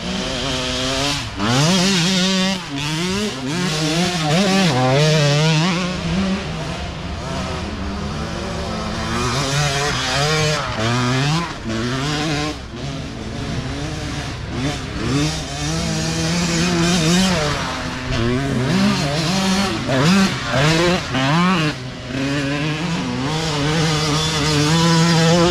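Dirt bike engines racing, their pitch climbing and dropping again and again as the riders accelerate and shift gears.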